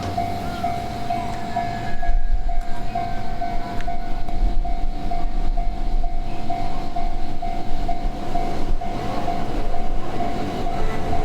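Japanese railway level-crossing warning bell ringing at about two strokes a second as an Ome Line train runs past with a steady rumble.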